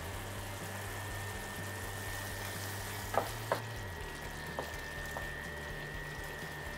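Quiet sizzle of a tomato-onion gravy simmering in a stainless steel pan, with a few light clicks as a wooden spoon stirs in ground spices about three to five seconds in.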